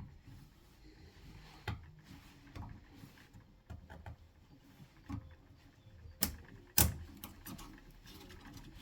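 Light irregular clicks and taps of hand work fitting a piston ring onto a diesel engine piston, with two sharp metallic clicks about six and a half seconds in.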